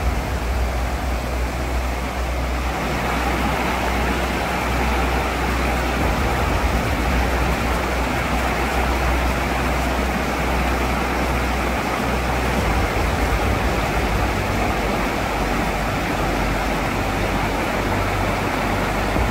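Mountain river rushing over boulders: a steady, even rush of water with a deep rumble underneath.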